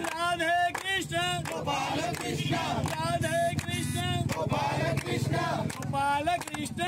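A group of men singing a devotional chant to Ranchhodrai (Krishna) together, with hand clapping.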